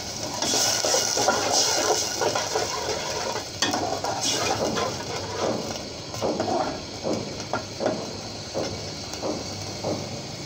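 A steel spatula stirring and scraping around the inside of an aluminium pot, over a steady sizzle of spice paste frying in oil with a little water. The scrapes come in quick, regular strokes in the second half.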